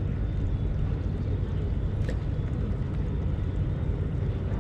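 A steady low engine hum, with a single faint click about two seconds in.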